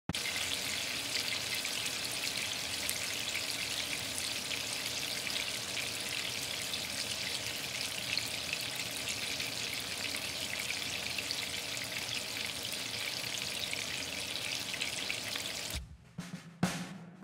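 Rohu fish steaks sizzling steadily in hot oil in a frying pan. The sizzle stops near the end and music with a drum beat begins.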